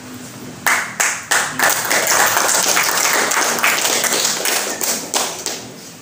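Applause: a few sharp claps about a second in, then many hands clapping together, dying away near the end.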